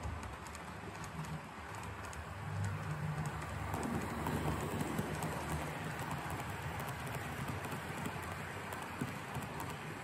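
Model railway freight train running past on curved track: a steady rattle of small wheels over the rails with a low hum. It grows louder from about two and a half seconds in as the wagons pass close by.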